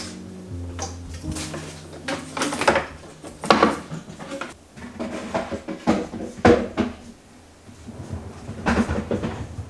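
Kitchen drawers being worked and items set down in them, a series of knocks and clunks, over background music with steady held notes.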